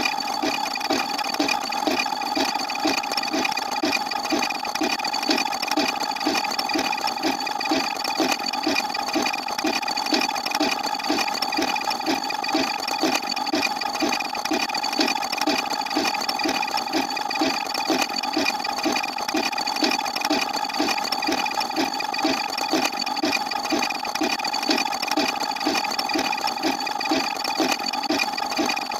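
A dense, layered mix of looping sound effects, one per counter digit place, playing together: several held tones over a regular low pulse about twice a second, all at a steady level.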